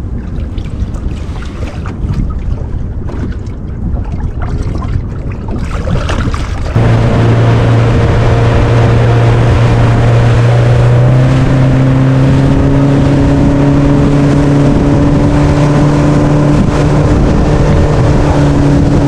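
Wind and water noise on the microphone for the first several seconds. About seven seconds in, a small fishing boat's motor cuts in abruptly and runs with a steady hum, which a second steady tone joins a few seconds later.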